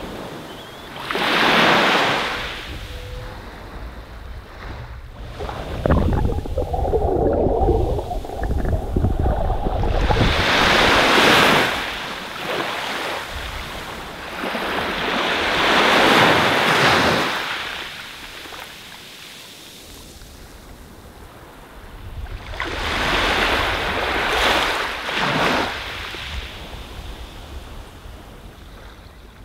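Small waves breaking and washing up over sand at the water's edge, swelling and fading in about four surges. A low wind rumble on the microphone comes in about six seconds in.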